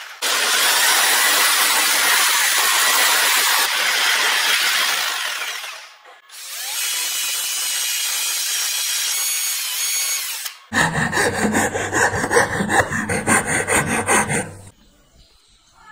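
A power tool cuts into a wooden board and stops about six seconds in, then an electric drill bores a hole through the wood for about four seconds. A flat file then rasps back and forth along the edge of a rectangular cutout in the wood, about three strokes a second, and stops shortly before the end.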